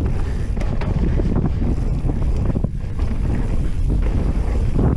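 Wind rushing over the microphone as a mountain bike descends a dirt trail, with the tyres rolling over the dirt and many quick rattles and knocks as the bike bounces over bumps.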